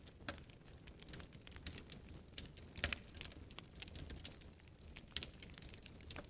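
Wood fire crackling in a fireplace: irregular sharp pops and snaps, one louder snap near the middle, over a soft low rumble.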